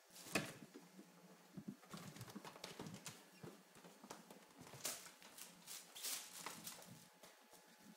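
Light, irregular taps and rustles of a Himalayan kitten pawing at a green wire-frame toy trimmed with tinsel.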